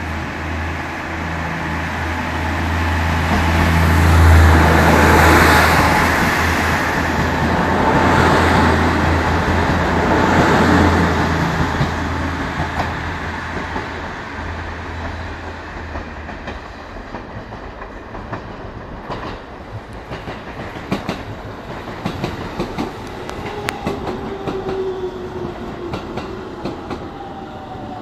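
Three-car diesel railcar train passing close by, its engines droning under wheels clacking over rail joints, loudest about four to eleven seconds in. The engine drone fades out as the train pulls away, leaving scattered clicks of the wheels on the track.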